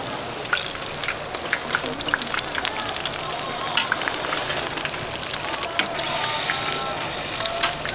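Battered twigim (Korean tempura) deep-frying in hot oil: a dense, steady sizzle full of small pops and crackles.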